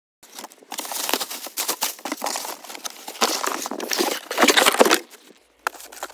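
A cardboard box and its packaging are handled and opened, making irregular rustling, crinkling and scraping that stops about five seconds in.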